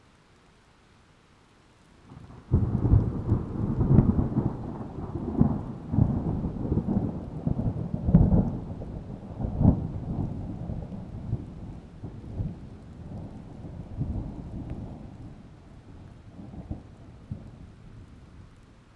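A long roll of thunder: it breaks suddenly about two seconds in, crackling and rumbling at first, then slowly fades over the next fifteen seconds.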